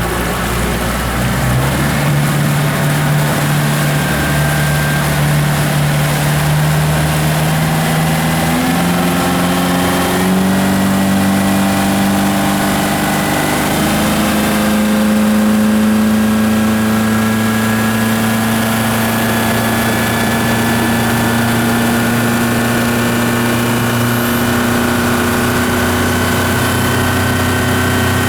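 Yamaha F150 150 hp four-stroke outboard running. Its engine note steps up in pitch twice, about a third of the way in and again about halfway, then holds steady at the higher speed.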